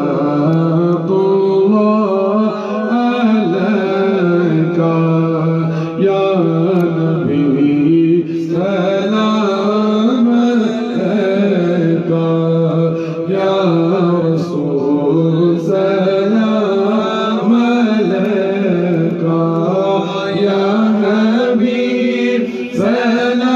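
Men singing a naat, an Urdu devotional salutation to the Prophet, unaccompanied, into microphones: a continuous melodic vocal line with long held notes.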